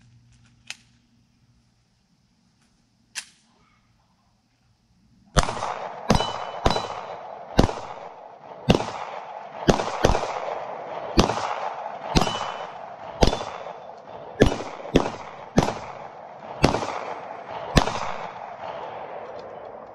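Taurus G3 9mm pistol firing about fifteen shots at an uneven pace, roughly one a second, each sharp crack trailing off in a long echo. Two fainter cracks come before the string, in the first few seconds.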